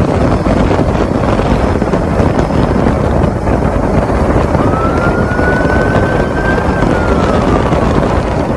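Heavy wind noise buffeting a helmet-mounted camera microphone on a motorcycle at highway speed, loud and steady. A faint police siren wail rises and holds about halfway through, then falls away near the end.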